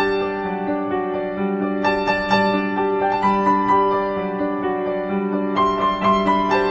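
Background instrumental music: a piano playing a slow melody over held notes.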